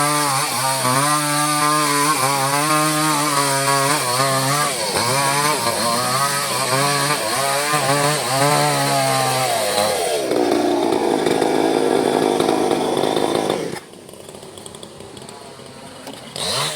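Small two-stroke chainsaw cutting mahogany, its engine note repeatedly dipping and recovering under load. About ten seconds in the pitch drops and it runs rougher, then falls much quieter at about fourteen seconds, with a short rev near the end.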